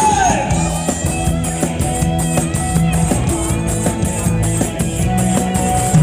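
Live band playing Thai ramwong dance music: drum kit and electric guitars over a bass line, with a steady beat.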